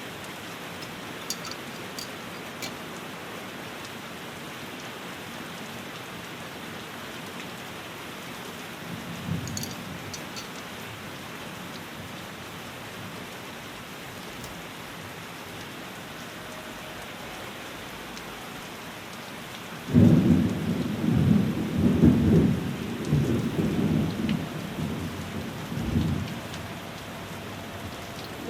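Steady rain, with a brief low rumble of distant thunder about a third of the way in. Two-thirds through, a loud thunderclap starts suddenly and rolls on in swells for several seconds.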